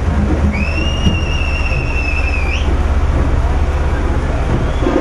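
Street procession crowd noise over a loud, steady low rumble, with voices mixed in. About half a second in, someone gives one long, steady whistle lasting about two seconds that flicks upward as it ends.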